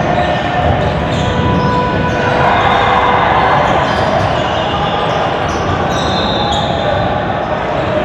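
Basketball being dribbled on a hardwood gym floor, with short squeaks of sneakers and voices in the hall.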